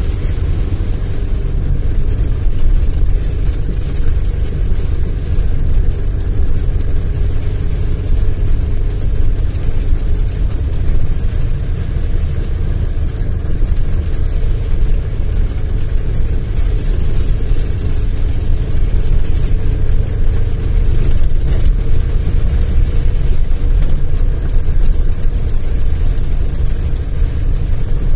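Car engine and tyres heard from inside the cabin while driving slowly over a rutted, muddy, slushy dirt road: a steady low rumble.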